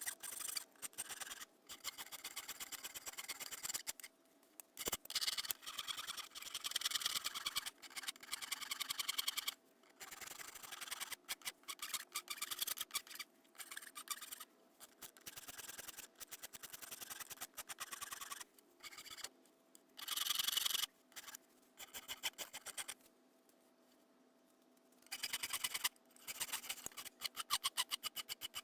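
A file rasping across a dense oak knife handle in runs of quick strokes, broken by short pauses, the longest near the end.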